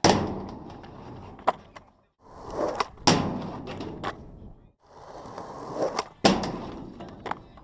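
Skateboard popping onto and grinding along the metal edge of a concrete ledge, then its urethane wheels rolling on concrete. This happens three times, each starting with a sharp crack of the board and trucks hitting, followed by a long scraping roll that fades.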